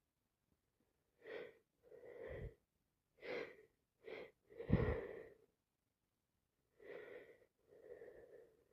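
A woman with a cold taking short gasping, wheezing breaths, seven bursts in all, with a sneeze about five seconds in as the loudest.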